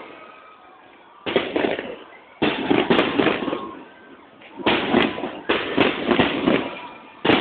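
Aerial fireworks going off in about five sudden volleys, each a quick crackling cluster of bangs, with short lulls between them.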